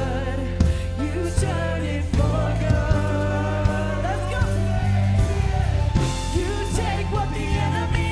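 Live worship band playing a pop-rock song, with a woman singing lead over electric guitar, bass, keyboard and drums.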